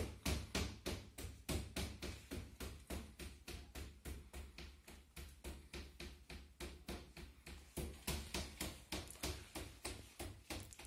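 Rapid, even tapping, about five strokes a second, over a low steady hum.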